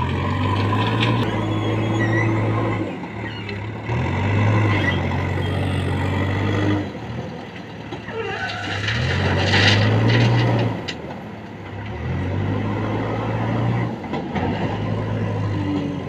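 Diesel engine of a JCB backhoe loader revving up and easing off over and over as it digs, lifts and swings its loader bucket. About nine seconds in there is a rushing clatter of crushed stone tipped into a steel tipper body.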